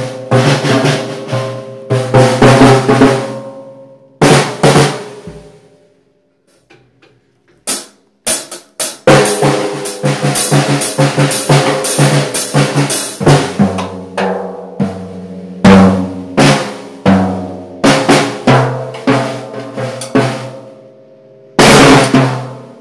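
Acoustic drum kit played with sticks: rapid hits and fills on the snare, toms and bass drum. The playing stops for a few seconds about a fifth of the way in, apart from a couple of lone hits, then starts again.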